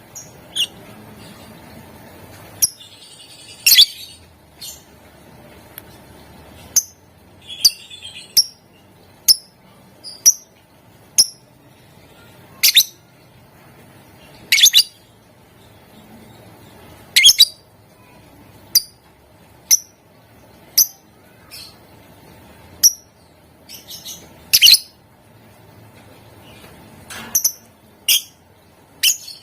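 Lovebird giving short, shrill chirps one after another, roughly one a second at an uneven pace, some much louder than others.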